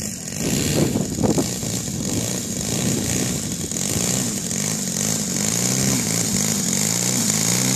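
Engine of a large radio-controlled Pitts Special model biplane running at low throttle while it taxis on grass, its propeller spinning, growing a little louder as it comes closer.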